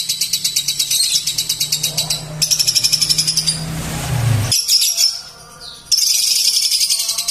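Lovebird singing a long, high, rapid rattling trill with several pulses a second. The trill breaks off briefly about two seconds in and drops away for about a second near the five-second mark before starting again.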